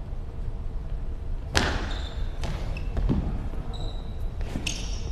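A goalball, the bell-filled ball, strikes the court with one sharp knock about a second and a half in, followed by several softer thuds as it bounces and is played, with brief jingles from its bells.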